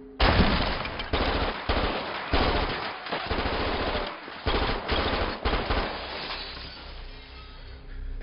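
Automatic gunfire: repeated long bursts of rapid shots that start suddenly just after the beginning and stop about six seconds in.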